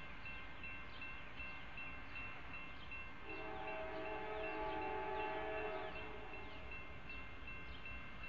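Grade-crossing warning bell ringing in fast, even strokes as the gates come down; about three seconds in, the horn of an approaching CSX locomotive sounds one long chord for nearly three seconds over the bell.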